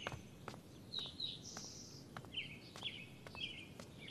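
Faint ambience of small birds chirping in short repeated calls, about two a second, with light clicks in between.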